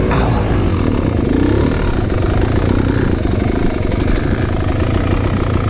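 Two-stroke dirt bike engine running at low speed, its revs rising and falling as the throttle is worked, heard close up from on the bike.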